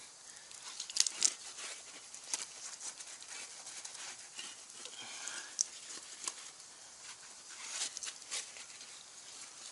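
Wet sponge scrubbing a mountain bike's knobby front tyre and fork, heard as short, irregular rubbing and scratching strokes with a few sharper clicks.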